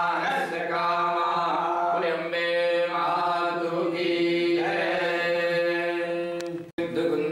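Male voices chanting Hindu Sanskrit mantras in long held, even tones. The chant cuts out for an instant near the end.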